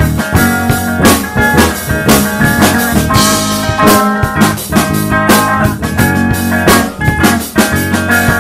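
Rock instrumental on drum kit, electric bass and electric guitar: a steady drum beat under bass and guitar, with a cymbal crash about three seconds in.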